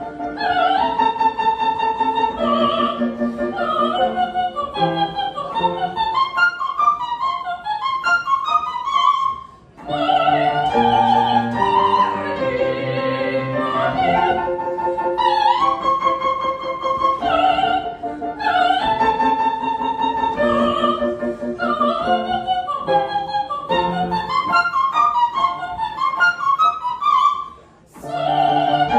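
Opera music: a classical singing voice over instrumental accompaniment, with a melody that moves continuously. It breaks off briefly twice, about a third of the way in and near the end.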